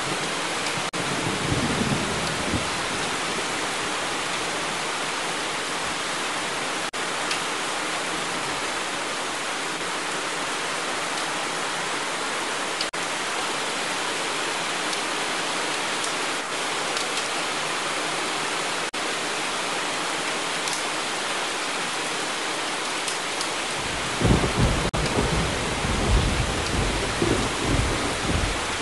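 Heavy rain pouring down in a dense, steady hiss. Thunder rumbles low in the first couple of seconds and again, louder, over the last few seconds.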